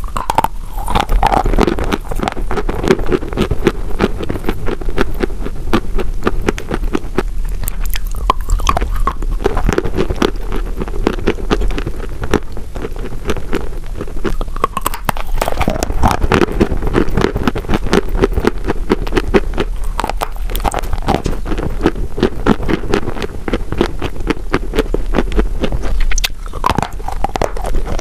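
Close-miked biting and chewing of wet chalk: a dense run of crisp crunches and crackles that goes on steadily.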